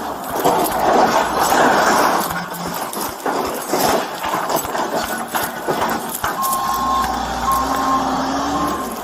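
A backhoe running with heavy clattering and many sharp knocks, loudest in the first few seconds. From about six seconds in, a single-pitched beep repeats about once a second.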